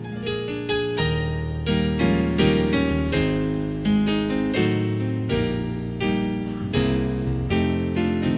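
Instrumental keyboard introduction to a hymn, with sustained chords and bass notes struck about once a second in a slow, tender pattern, before any singing.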